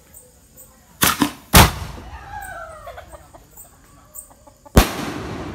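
Aerial firework shells bursting: two sharp bangs close together about a second in, the second the louder, then another bang near the end that rumbles on as it fades. Between them a short call falls in pitch.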